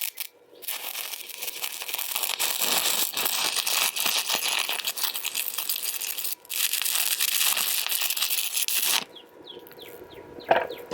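Electric arc welding: the arc crackles and sizzles in a dense run of tiny pops, breaks off briefly partway through, strikes again, then stops about nine seconds in.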